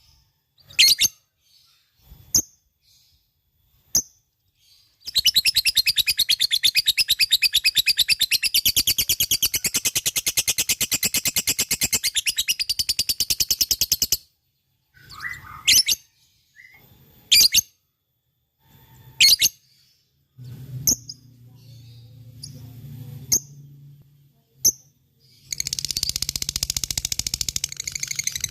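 Lovebird singing its 'ngekek': a few sharp, high chirps, then a long, rapid chattering trill lasting about nine seconds, more scattered chirps, and another rapid trill starting near the end.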